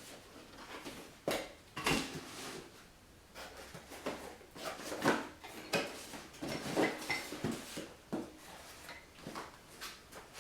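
Irregular light clinks, knocks and rustles of small objects being handled, a dozen or so scattered through the stretch, the sharpest about two, five and seven seconds in.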